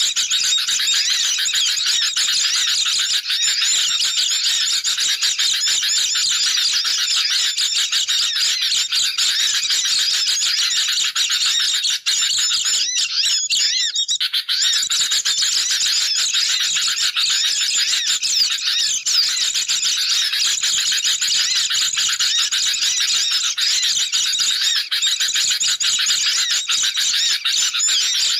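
Dense, unbroken chorus of agitated bird calls from sooty-headed bulbuls mixed with white-eyes, many high chirps and twitters overlapping: a lure recording for trapping. About thirteen seconds in it breaks off briefly with a few clicks, then carries on.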